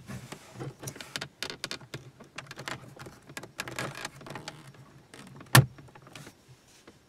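Small plastic clicks and rattles as a hazard light switch wiring plug is handled and pushed into its socket, with one sharp, loud click about five and a half seconds in as the plug snaps home.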